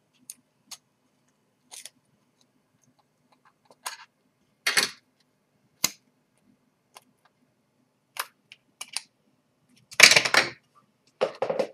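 Light clicks and metallic clatter as small metal heatsink retention brackets are unclipped from a laptop motherboard and set down on the desk. The clatters are louder about five seconds in and again near the end.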